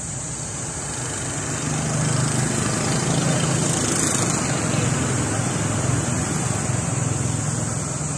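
A low, steady motor hum over outdoor background noise, growing louder about two seconds in and easing off near the end.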